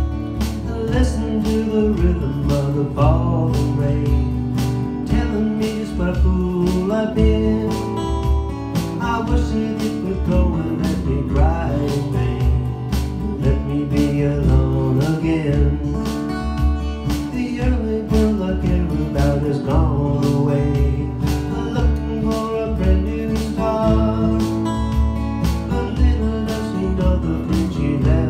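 Acoustic guitar strummed in a steady rhythm, with a man singing over it at intervals.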